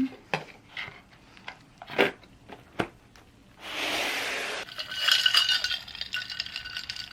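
Kitchen dishes and utensils clinking and knocking: a few separate knocks, a short rush of noise about three and a half seconds in, then a run of ringing clinks.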